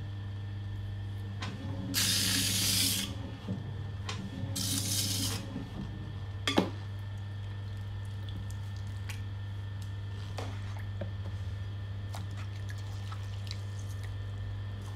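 Electric potter's wheel humming steadily while a wet sponge is squeezed out, water splashing into the splash pan twice, about two and four and a half seconds in. A sharp click comes near the middle, followed by small wet dabbing ticks.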